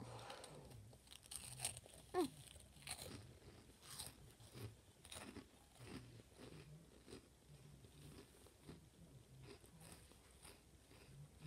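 A mouthful of Flaming Hot Monster Munch corn snack being crunched and chewed. The loudest crunches come in the first two or three seconds, then the chewing goes on quieter at about one or two crunches a second.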